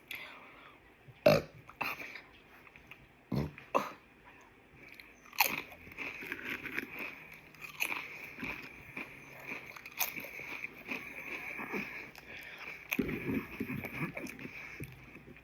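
A person eating: several sharp crunching bites, the loudest about a second in, with quieter chewing in between.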